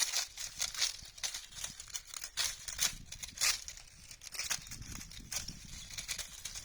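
Dry autumn leaves rustling and crackling in irregular crisp bursts, several a second.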